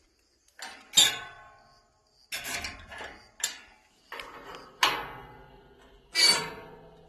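Metal latch of an old gate being worked, giving a series of clanks and rattles, each ringing briefly, the loudest about a second in.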